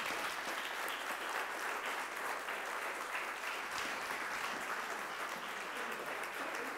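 Audience applauding: steady clapping from a small seated crowd.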